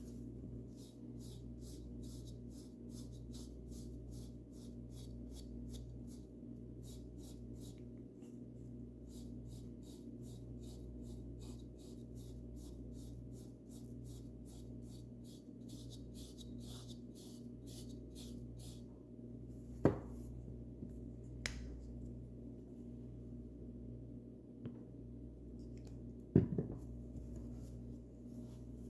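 Paintbrush bristles brushing paint onto a bird house in quick, even strokes about three a second, stopping a little over halfway through. Then a few sharp knocks, the loudest near the end.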